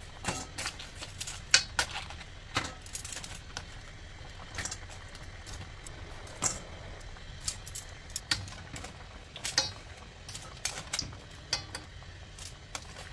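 Metal kitchen tongs clinking and scraping against a stainless steel pan and crab shells as boiled crabs are lifted out of the water, a string of irregular sharp clicks over a steady low hum.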